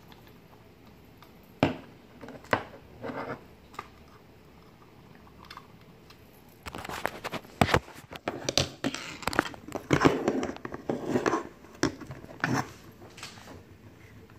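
Handling noise from a hard plastic phone holster and its small metal bolt and nut being fitted: a few scattered clicks and knocks, then from about seven seconds in a busy run of clattering and rubbing close to the microphone, which stops about a second and a half before the end.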